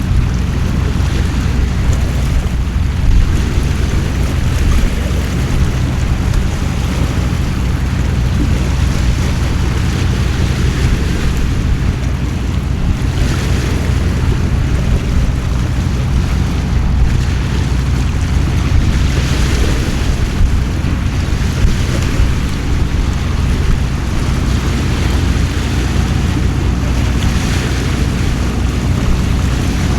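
Heavy rain pouring down in gusting wind, swelling louder a few times, over a steady low rumble.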